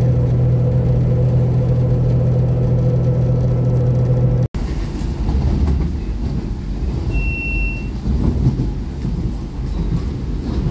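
Cabin noise of a moving bus: a steady low engine drone, then, after a cut about four and a half seconds in, a rougher rumble of the ride. A short high beep sounds about seven seconds in.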